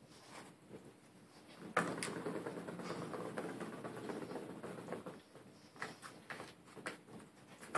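Ball rolling around the plastic ring of a circular cat track toy as a cat bats it: it starts suddenly about two seconds in and runs as a steady rolling rattle for about three seconds, followed by a few light clicks and taps.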